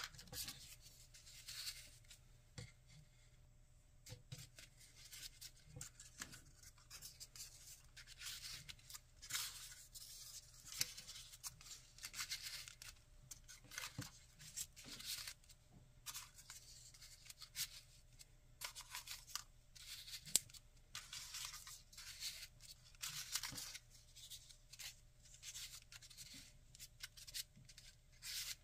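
Folded paper modules of a 3D origami piece rustling and scraping as they are handled and pushed onto one another, in many short, irregular scratchy bursts.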